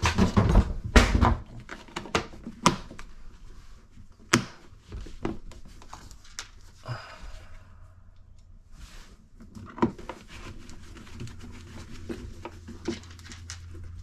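Knocks and clicks of a wall plate being fitted over a GFCI outlet and screwed on with a screwdriver; the loudest knocks come in the first second or so, followed by scattered sharper clicks and a brief scrape.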